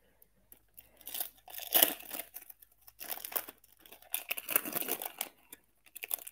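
Foil wrapper of a Topps Chrome trading-card pack being torn open and crinkled by hand: irregular crackling rips, loudest about two seconds in.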